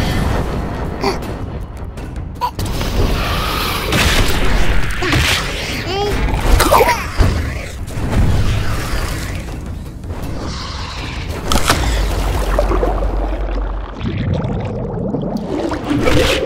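Cartoon monster-fight soundtrack: dramatic music under booming impacts and creature cries, with gliding shrieks about five to seven seconds in.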